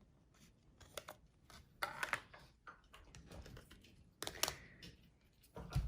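Scattered small plastic clicks and rustles from new laptop RAM modules being handled and pried out of their plastic packaging with fingernails, a few louder snaps about two seconds in, past four seconds and near the end.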